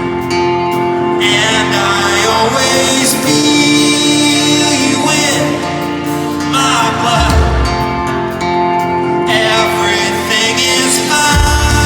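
Live pop-folk band music with a male lead vocal singing; deep bass notes come in about seven seconds in and again near the end.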